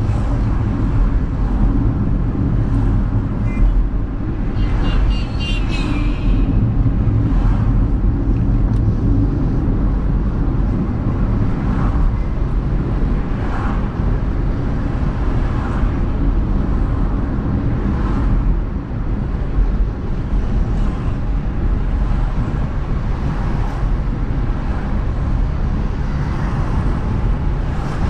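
Car driving on a city road, heard from inside the cabin: a steady low rumble of engine and tyre noise with passing traffic. A brief high-pitched sound stands out about five seconds in.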